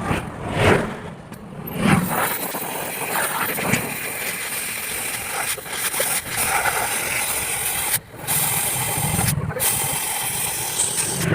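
Oxy-fuel gas cutting torch burning with a steady, loud hiss, cut off briefly twice, about eight and nine and a half seconds in.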